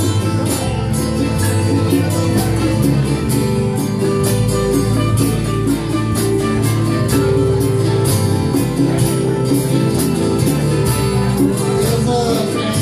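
Live band playing: strummed acoustic guitar, electric guitar and electric bass over a steady drum beat.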